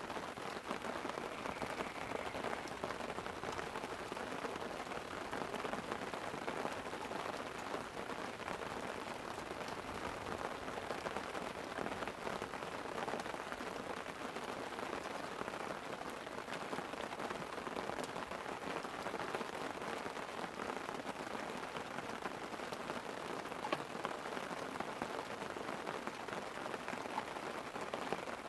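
Light rain falling on a tent: a steady hiss of drops with many small ticks throughout.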